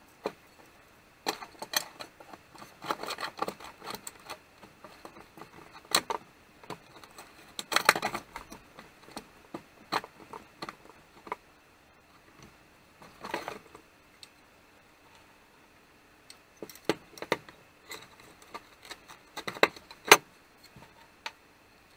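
Scattered metal clicks, taps and small rattles of chainsaw parts being handled as the recoil starter housing, with its coil spring and pull rope, is fitted back onto a 1958 McCulloch Mac 35A chainsaw.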